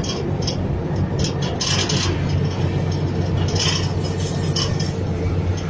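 Toyota Land Cruiser FJ40's engine running as the truck drives along towing a car, heard from inside the cab: a steady low drone, with short hissy bursts of road and cab noise now and then.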